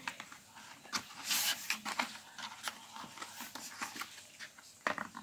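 Earbuds and neckband cable being pulled out of a cardboard packaging insert: light rustling and scraping with scattered small clicks, and one short louder rustle about a second and a half in.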